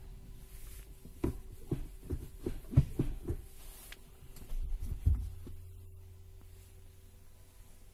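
Manual gear lever being rocked side to side in neutral, making a quick run of low knocks and clunks, then another short cluster. About five seconds in, a low steady hum starts.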